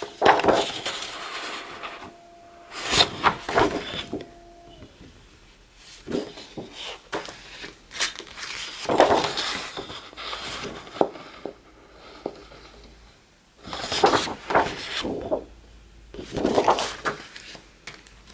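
Sheets of scrapbooking paper from a paper pad rustling and flapping as they are turned over and handled, in about six separate bursts with quieter pauses between.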